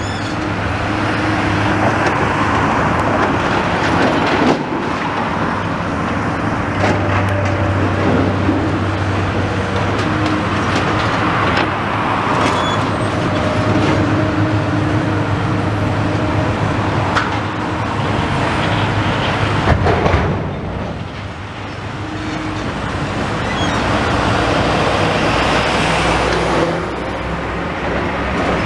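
Diesel engine of a high-reach demolition excavator running steadily, mixed with passing road traffic, with a few short knocks from the demolition of brickwork.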